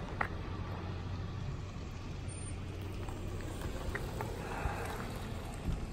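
Steady low rumble of car traffic in a parking lot, with a few faint clicks and a brief swell of tyre-like noise about four and a half seconds in.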